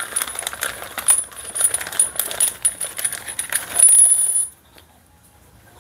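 Clear plastic packaging bag crinkling and rustling as new rubber body mounts are unwrapped, loudest just before it stops abruptly about four and a half seconds in.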